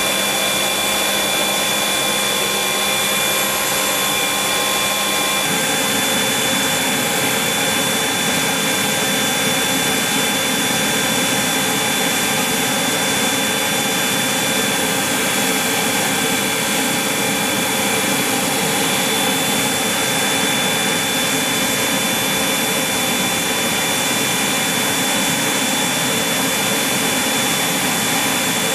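Steady high-pitched turbine whine over a constant rushing noise from a parked AH-64E Apache attack helicopter during pre-flight, with no rotor beat. The tone changes slightly about five seconds in, where a low hum drops away.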